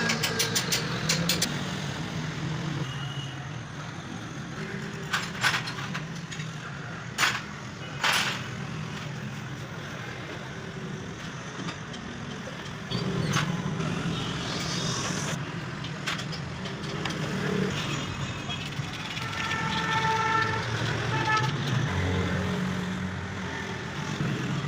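Road traffic noise with a short vehicle horn toot about three quarters of the way through, and a few sharp clicks.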